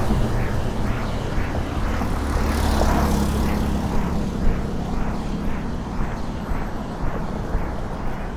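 Road traffic on an elevated road, buses and cars, giving a steady low engine rumble and hum that eases off a little after about four seconds. A light tapping comes about twice a second throughout.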